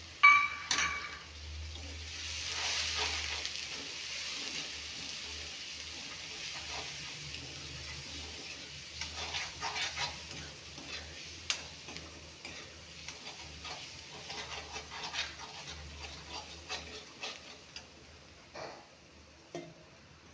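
Onion-garlic paste and ground spices sizzling in hot oil in a steel kadhai while a steel spoon stirs and scrapes the pan. There is a sharp clink of spoon on pan near the start. The sizzle is strongest a few seconds in and dies down toward the end.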